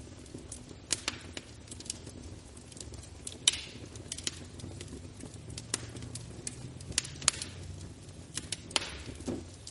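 Wood fire burning in a fireplace: a steady low rumble with irregular sharp crackles and pops, the loudest about three and a half seconds in.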